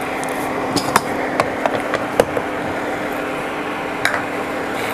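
A handful of light, sharp taps and clicks, as a hand handles a plastic serving plate and bowls, over a steady low hum and hiss.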